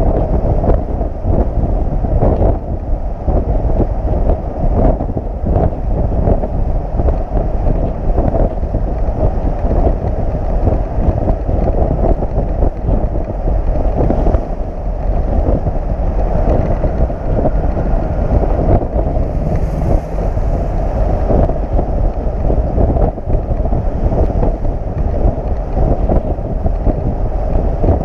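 Heavy wind buffeting on a camera microphone carried at highway speed on a flatbed tow truck, over a steady low rumble of road and truck noise.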